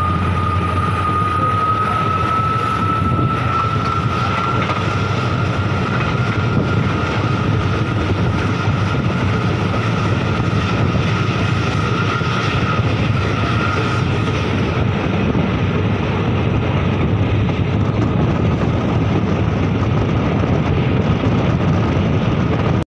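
Passenger train running along the track, heard from beside a coach's open window or door: a steady, loud rumble with a thin whine that rises slowly in pitch and fades out about two-thirds of the way through.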